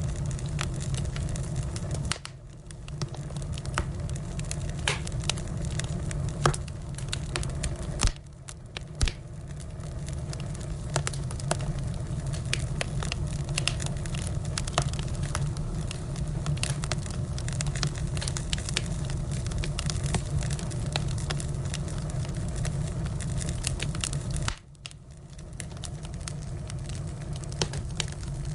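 Firewood burning, with scattered sharp crackles and pops over a steady low rush of the flames. The sound dips briefly about two, eight and twenty-four seconds in.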